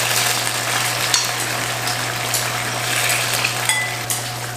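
Hot, starch-thickened chili-oil sauce sizzling and simmering in a wok just off the heat: a steady hiss over a low, constant hum. A few light clicks from the tongs come about a second in and near the end.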